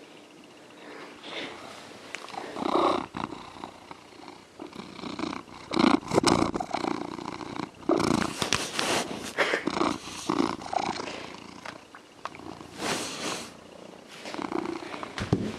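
Big brown tabby cat purring close to the microphone, the purr swelling and fading with each breath, with a few sharp clicks along the way.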